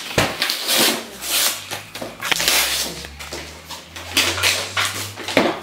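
Gift-wrapping paper being torn and crumpled by hand as a present is unwrapped, in a series of rustling rips.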